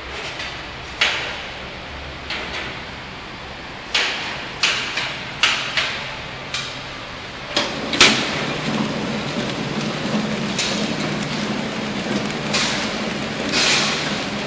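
Horizontal flow pack machine running: a steady mechanical whir with irregular sharp clacks. About eight seconds in, after a loud clack, the running noise gets louder and fuller with a low hum.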